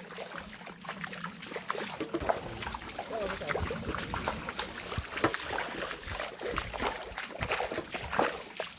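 Water splashing and sloshing with irregular small knocks, and faint voices.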